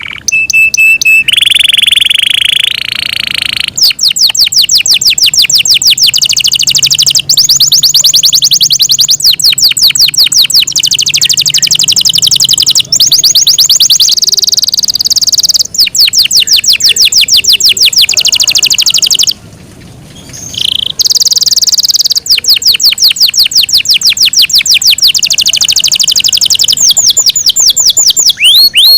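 Yorkshire canary singing a long, loud song of fast repeated trills, phrase after phrase, with a held steady note near the start and a short pause about two-thirds of the way through.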